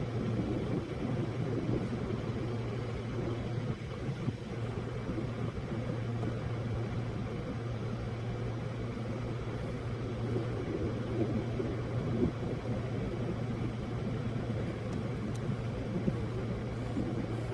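A car running, with a steady rumble and a constant low hum.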